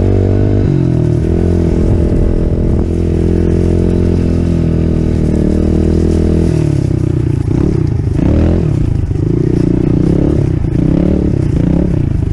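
Yamaha TTR110 pit bike's 110cc air-cooled four-stroke single running under load, held at steady revs for about six seconds, then revving up and down repeatedly as the throttle is worked.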